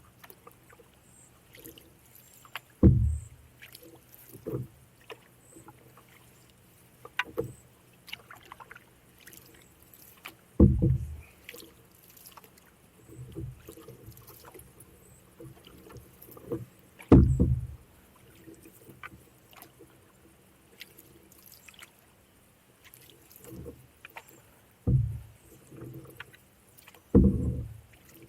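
Canoe being paddled: a short, low-pitched surge of water and hull sound with each paddle stroke, coming every few seconds at an uneven pace, with faint small drips and trickles between strokes.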